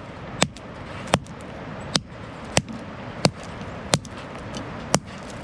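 A hammer striking stone as rock is broken by hand into ballast: seven sharp, ringing blows in a steady rhythm, about one every two-thirds of a second, the last after a slightly longer pause.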